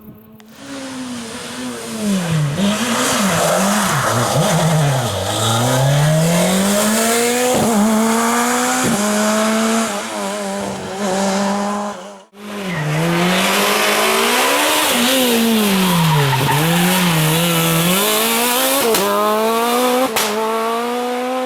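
Naturally aspirated four-cylinder rally car engine revving hard. Its pitch drops repeatedly on downshifts and braking, then climbs again under acceleration, over tyre and road noise. The sound breaks off abruptly about 12 seconds in, and another run of the same kind follows.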